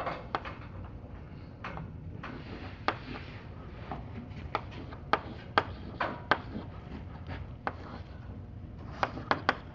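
Chalk writing on a blackboard: irregular sharp taps of the chalk against the board with short scratchy strokes between, ending in a quick run of taps.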